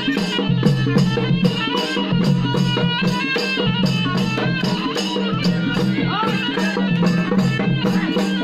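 Traditional folk music with a quick, steady rattling percussion beat over held tones and a melody.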